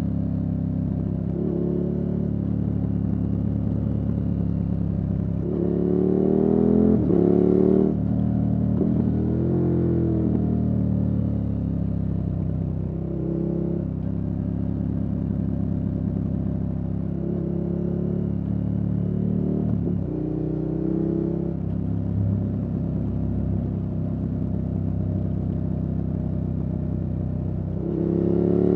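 KTM 1290 Super Adventure S's 1301 cc V-twin running through an aftermarket Wings exhaust, holding a steady note and picking up briefly in pitch several times. Near the end it pulls hard with a rising note.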